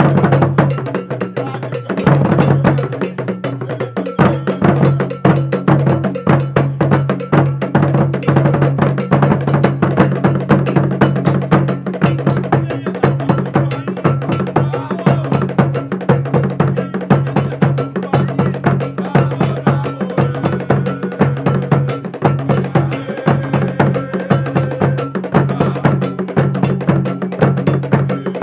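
Music with a fast, busy percussion rhythm: sharp bell- and wood-block-like strikes over a steady low bass, filling out about two seconds in.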